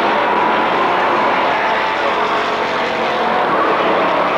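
A pack of street stock race cars running at racing speed, their engines blending into a steady, loud drone.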